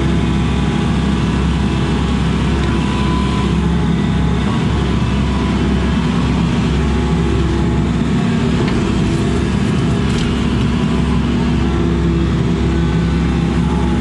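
Excavator's diesel engine running steadily, heard from inside the operator's cab as the boom, stick and bucket are worked with the joysticks.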